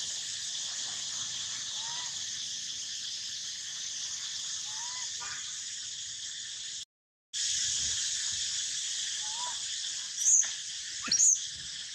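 Steady high buzz of forest insects, with a young monkey giving a few soft, short rising-and-falling coos and then two sharp, loud calls a second apart near the end. The sound cuts out briefly about seven seconds in.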